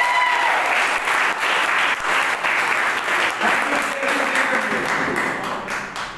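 Audience applauding, dense clapping that thins and fades out near the end.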